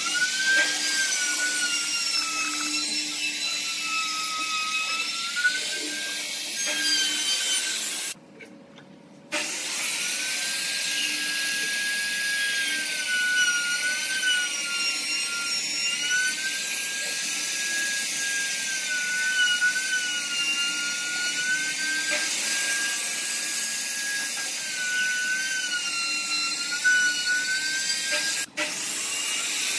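Maktec trim router running with a high whine, its pitch dipping and recovering again and again as the bit bites into the wood. It cuts out for about a second around eight seconds in, then runs on.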